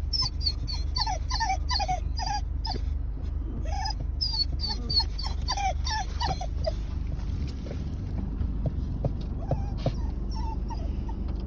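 Male dog whining and whimpering in a quick run of short, high, falling cries, several a second, thinning out after about six seconds: excited at the sight of a female dog.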